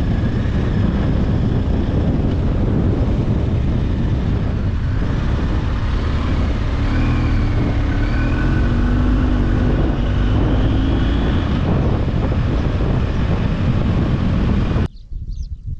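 Heavy wind noise on the microphone over the engine and road noise of a moving vehicle. It cuts off suddenly near the end.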